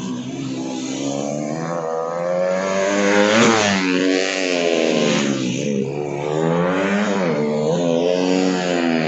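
Several small motorcycles are revving up and down as they lap a tight practice course, their engine pitches rising and falling together. About three seconds in, one passes close, and it is loudest as its pitch drops.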